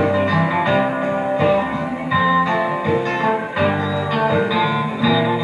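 A live band playing an instrumental passage of a folk ballad, led by guitars over bass.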